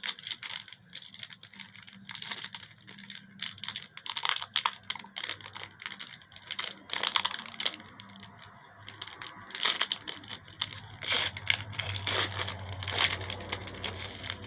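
A Donruss baseball card pack's wrapper being torn open and crinkled by hand: a long run of short tears and rustles.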